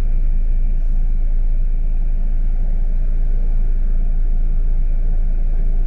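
Steady low rumble of a vehicle's engine and running gear, heard from inside the vehicle.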